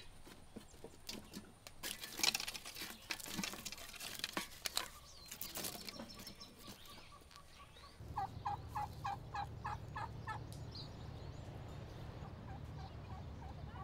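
Clicks and rustling, then an animal call: a run of about eight quick, evenly spaced notes lasting about two seconds.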